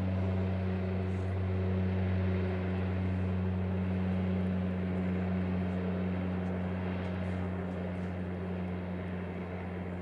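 Cessna 208 Caravan floatplane's turboprop engine and propeller running steadily as it skims across the water on its floats: a steady low drone over a broad rushing noise, easing off slightly near the end.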